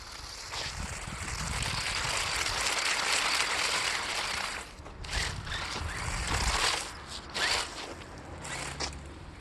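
RC car with tape-wrapped wheels drifting on asphalt, the taped tyres scrubbing and sliding as its motor drives them. One long slide fills the first few seconds, then several shorter bursts follow as it spins and changes direction.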